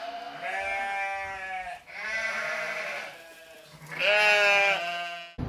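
Three long bleating calls, each about a second or more, the last one the loudest.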